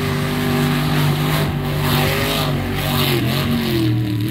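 Mud truck engine revving hard at high rpm through deep mud, its pitch steady at first, then dipping and wavering in the last second or so. Over it is a rushing hiss from the spinning tyres throwing mud and water.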